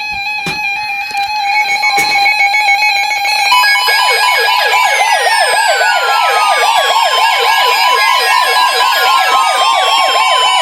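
Weather alert radios going off for a new warning. Steady beeping alert tones give way about three and a half seconds in to an electronic siren-like alarm that warbles up and down about three times a second, with long falling sweeps over it. A steady weather alert tone joins near the end.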